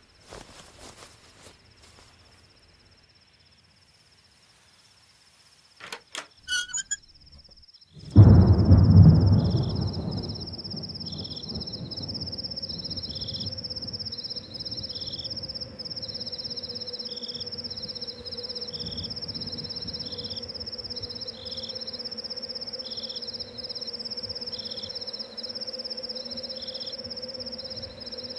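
Night insect chorus of crickets: a steady high trill with a pulsing chirp repeating about once a second, over a steady low hum. It comes in about eight seconds in with a loud low rumble that fades over a couple of seconds. Before that it is nearly quiet apart from a few small clicks and jingles.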